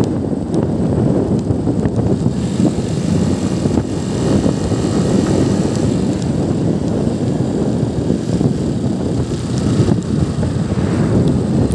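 Motorcycle riding at road speed: steady wind rush buffeting the microphone over the low drone of the engine and tyres.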